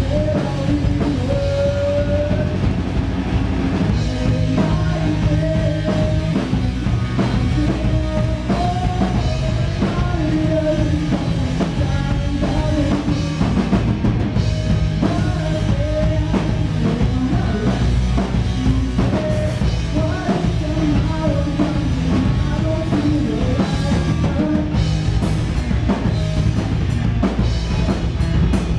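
Rock band playing live: drum kit and electric bass under a melody line that bends in pitch, loud and unbroken throughout.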